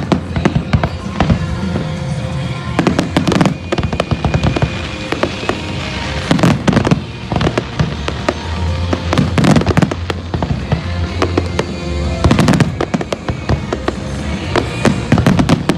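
Aerial fireworks shells bursting in quick succession, with sharp bangs and crackle coming in dense clusters every few seconds, over steady background music.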